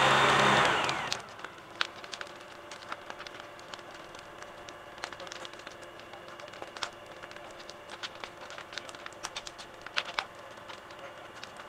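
LS compact tractor's engine running hard, then dropping away about a second in to a faint steady idle. Scattered small cracks and ticks of debris sound over the idle.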